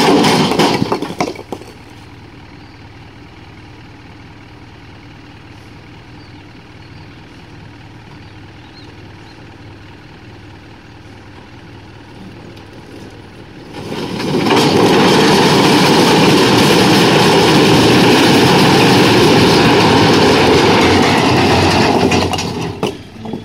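Tipping trailer dumping a load of cut stone blocks. A clatter of blocks falling off the back at the start, then the tractor engine runs steadily while the bed tips. About 14 seconds in, a long loud rumbling clatter of the stones sliding off begins and lasts about eight seconds before it dies away near the end.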